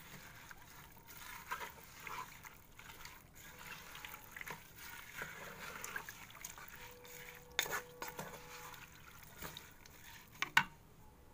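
Spatula stirring raw sliced onions, spices, oil and water in a metal pressure cooker: soft wet squishing and scraping, with two sharp knocks of the spatula against the pot, the louder one near the end.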